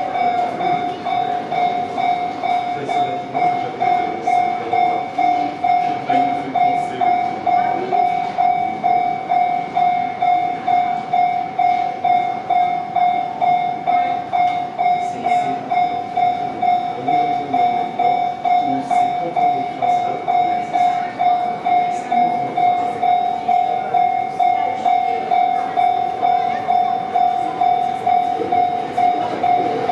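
Japanese level-crossing warning bell ringing its steady 'kan-kan' at about two strokes a second, over the rumble and wheel clicks of a train passing the crossing.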